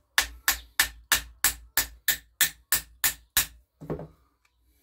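A screwdriver tapping repeatedly at a small two-stroke piston's stuck ring, about three even taps a second, a dozen or so, stopping about four seconds in. The ring is cemented in its groove by carbon.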